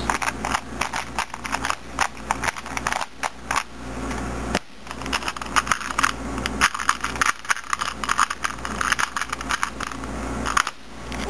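Plastic Rubik's Cube puzzles being turned quickly through an OLL algorithm, first a 3x3 and then a 2x2, giving rapid runs of clicking and clacking layer turns. There is a short break about four and a half seconds in, and another near the end.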